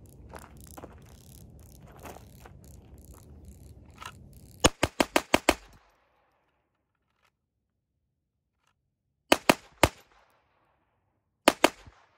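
Glock 44 .22 LR pistol firing: a fast string of six shots about four and a half seconds in, then three shots and, near the end, two more. Before the shooting, footsteps and scuffing on gravel.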